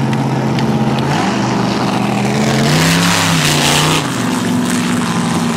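A car engine running steadily. Midway it swells louder for about a second and a half, the pitch rising and falling, then it settles back to its steady note.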